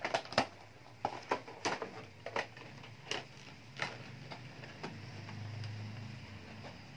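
Scissors cutting through a doll's box packaging: a series of short, sharp snips and crackles, irregularly spaced about half a second to a second apart.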